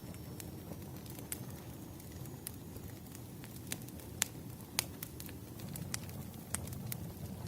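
Wood fire burning: a steady low rumble of flames with sharp, irregular crackles and pops from the burning firewood, the loudest pops about four and five seconds in.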